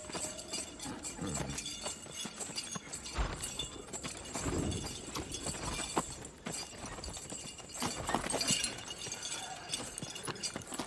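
Horses walking at a slow pace, their hooves clip-clopping unevenly.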